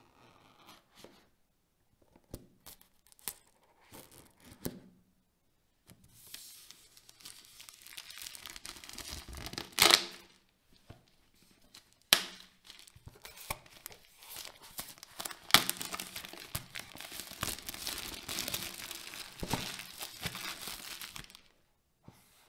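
Hands handling a cardboard retail box, rubbing and sliding over it in two long stretches of rustling, with a few sharp knocks as it is turned or set down.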